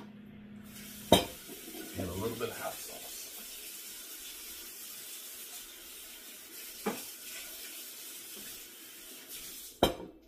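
A kitchen tap runs into a sink while dishes are washed: a steady hiss of water that starts about a second in and stops near the end. Three sharp clinks of dishes knock against the sink: one as the water starts, one partway through, and a loud one as it stops.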